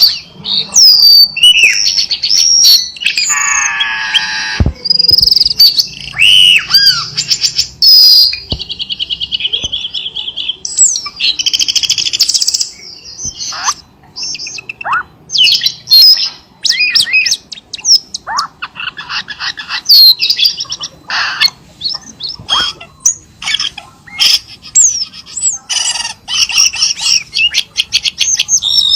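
Cucak keling songbird singing a loud, varied song of short whistled notes that rise and fall, mixed with rapid trills and chatters, with brief pauses between phrases.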